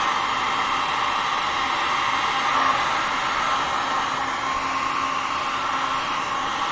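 Handheld heat gun running steadily over wet epoxy resin, a constant rush of blown air with a faint low motor hum.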